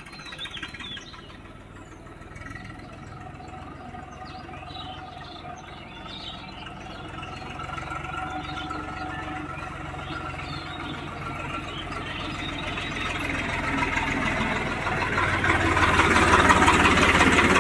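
Swaraj 744 tractor's three-cylinder diesel engine running under load as it hauls a heavily laden trolley. It draws closer and gets steadily louder, loudest as it passes close by near the end.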